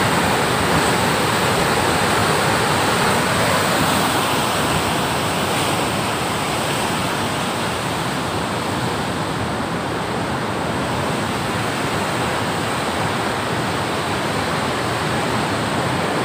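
White water churning and rushing out below a canal barrage's sluice gates, a steady, unbroken rush.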